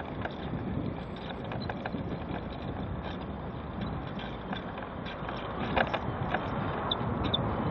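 Mobility scooter rolling over paving slabs, its body and fittings rattling and clicking over the joints, with a few louder knocks about six seconds in. Road traffic runs alongside.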